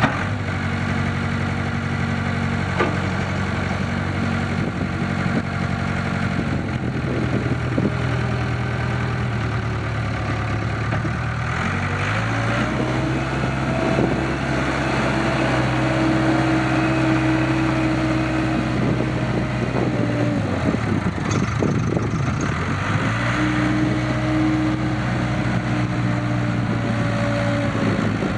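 Case 580 Super K backhoe's four-cylinder diesel engine running at a steady idle. About twelve seconds in it is revved up and held at a higher speed for several seconds, drops back to idle, then is revved up and held again near the end.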